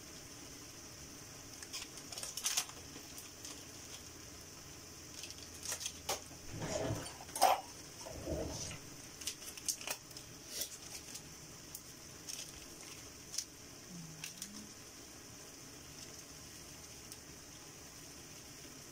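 Ground pork frying in a pan with a faint, steady sizzle. The plastic-foil seasoning packet crinkles and rustles in short bursts, most of them around the middle, as it is handled and opened.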